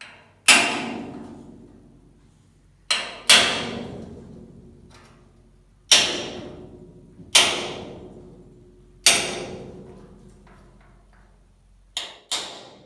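Hammer driving a metal punch against the welded steel-tube fuselage frame of a 1942 Piper Cub. There are eight sharp metallic strikes, a second or two apart with two quick pairs, and each one rings on and fades. The tubes are being struck hard all over to check for deep corrosion, and the frame proves sound, with no deep rust.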